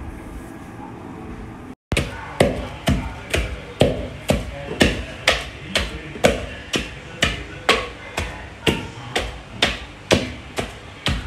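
Background music for about the first two seconds. Then a wooden pestle pounds boiled palm fruit in a mortar for banga soup. The blows are steady and even, about two a second.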